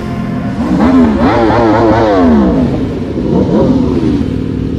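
Sport motorcycle engine revving hard, its pitch climbing and dropping several times in quick succession, then falling away for about a second as the bike slows, followed by one more short rev near the end.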